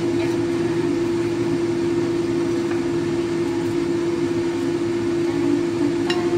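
A steady machine hum holding one low steady tone, with a short click near the end.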